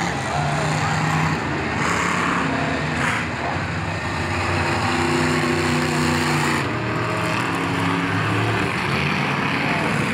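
Monster truck engines running loud, the engine note shifting up and down in pitch over a dense wash of noise.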